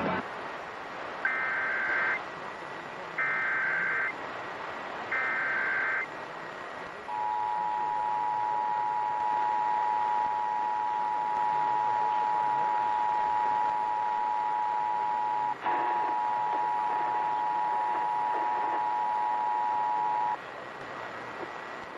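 Emergency Alert System test: three short bursts of screeching SAME header data about a second apart, then the steady two-tone EAS attention signal. The attention signal starts about seven seconds in and stops about twenty seconds in, broken once by a click partway through. A faint hiss runs underneath.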